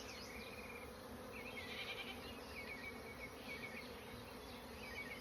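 Honeybees buzzing steadily around an opened hive: the low, even hum of many bees in flight.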